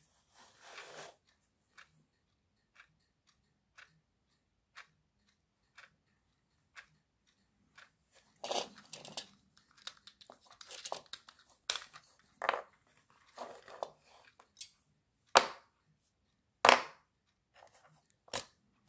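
Quartz clock movement ticking once a second. From about 8 s in, hands handling the plastic clock movement and batteries over it, with rustling and small clicks, then three sharp knocks near the end.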